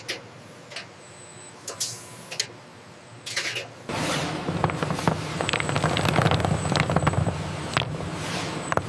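Production-line machinery: scattered clicks and short swishes, then about four seconds in a steady low hum with dense crackling starts up suddenly and runs on loudly.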